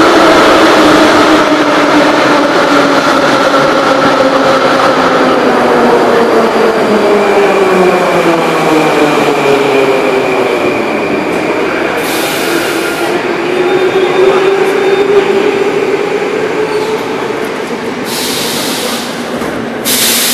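Metrowagonmash 81-717/714 metro train running into the station and braking to a stop. Its motor whine falls in pitch as it slows, and a thin steady squeal comes through midway. Short bursts of compressed-air hiss follow, the last as the doors open.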